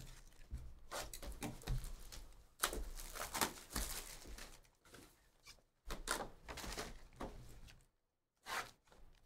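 Crinkling plastic wrapping and cardboard handled by hands while a trading-card hobby box is opened and a wrapped pack pulled out. It comes in irregular rustling stretches, with a short lull about five seconds in and a brief last rustle near the end.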